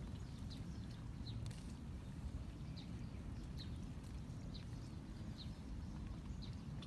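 Short, high chirps from a calling animal, repeated about once a second, over a steady low outdoor rumble.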